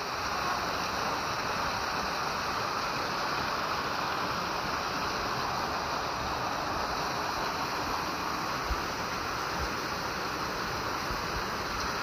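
Steady rush of water from a waterfall and a rocky mountain stream, with heavy rain falling.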